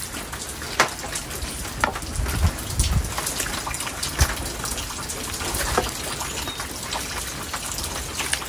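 Steady hiss of rain, with scattered soft clicks and wet plops as shredded chicken is tipped and scraped from a bowl into a pot of green salsa.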